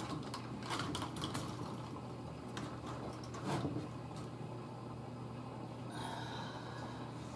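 Chicken wire being handled and pulled taut over a wooden shelf frame: a scatter of light clicks in the first couple of seconds and a short scrape near the middle, over a steady low hum.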